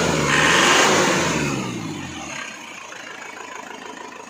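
Isuzu Panther's 2.5-litre direct-injection diesel engine revved, its pitch swinging up and down. About two seconds in it drops back to a quieter, steady idle.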